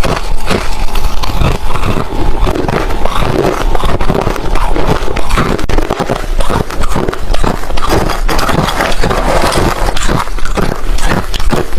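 Hard refrozen crushed ice being bitten and chewed close to the microphone: a dense, unbroken run of loud, sharp crunches.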